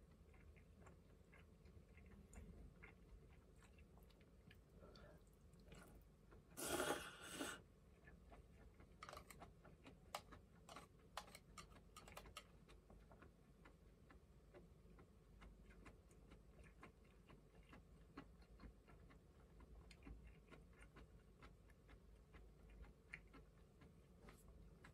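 Faint eating sounds: soft chewing and light clicks of chopsticks against the bowls, with one louder noisy sound about a second long around seven seconds in.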